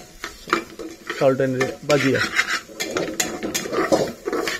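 Metal spoon scraping and clinking against the inside of an aluminium pressure cooker as basmati rice is stirred and fried in hot oil, in irregular strokes with a light sizzle.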